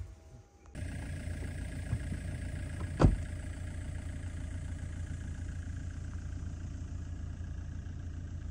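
A vehicle engine running steadily with a low rumble, with a single sharp knock about three seconds in.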